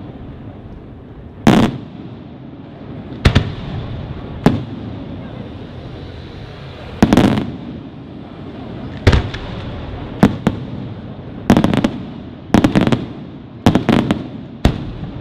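Aerial firework shells bursting: about a dozen loud bangs at irregular intervals, several coming in quick clusters of two or three toward the end, each with a short echoing tail.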